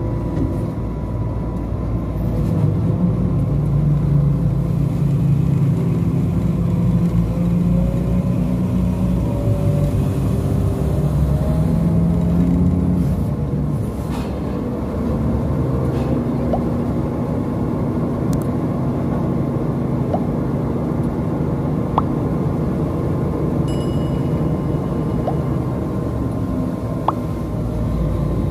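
Hitachi Sumitomo crane's diesel engine running under load while working a grab bucket for dredging, its pitch rising and falling as the operator works the hoist. A few sharp clicks come in the second half.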